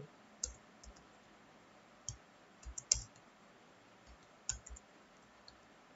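Computer keyboard keys pressed one at a time: a dozen or so light, separate clicks at uneven intervals, with short pauses between them.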